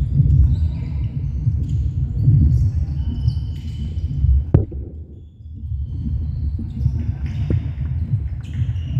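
Netball game sounds in a large hall: trainer soles squeaking on the wooden court and players calling out, over a low rumbling din. There is one sharp knock of the ball about four and a half seconds in.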